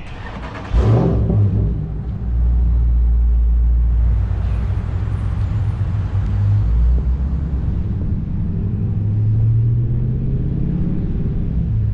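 Car engine starting about a second in with a brief rev, then running with a deep, steady rumble as the car pulls away and drives, the pitch rising a little as it speeds up near the end.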